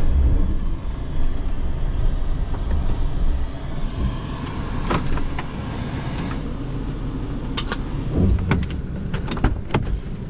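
Camper van's engine running, heard from inside the cab, while the van is stuck in snow. A few sharp clicks sound about halfway through and several more near the end.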